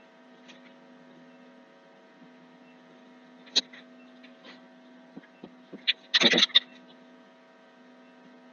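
Steady electrical mains hum on the recording. Over it come a few sharp clicks, one about three and a half seconds in and a cluster past the middle, from keyboard and mouse clicks as text is typed, with a brief louder rustle about six seconds in.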